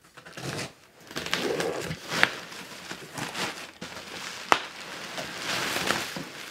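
Packing paper rustling and bubble wrap crinkling as a package is lifted out of a cardboard box, with a few sharp snaps, the loudest about two and four and a half seconds in.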